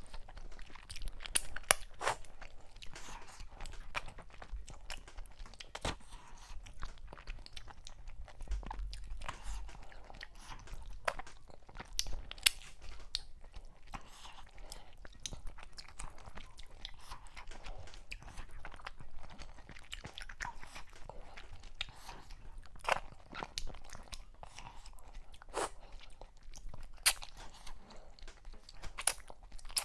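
Close-miked chewing and mouth sounds of a person eating mackerel in okra soup with fufu by hand, with many sharp clicks and crunches scattered throughout.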